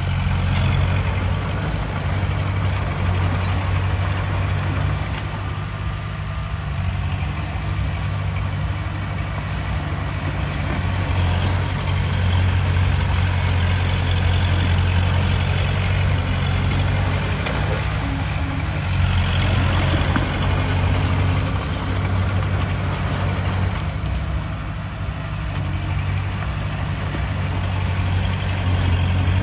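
Heavy diesel engine of earthmoving machinery running with a steady low drone that swells and eases every several seconds.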